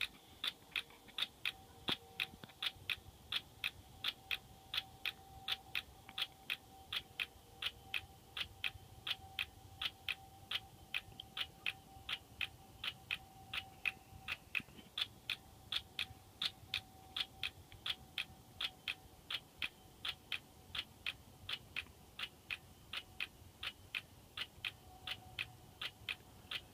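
Cricket chirping steadily in an even rhythm, about three short, high chirps a second.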